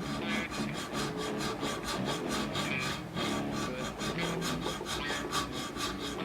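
Fast, even strokes of a file or sandpaper rubbing back and forth, about five a second, shaping the guitar's new nut.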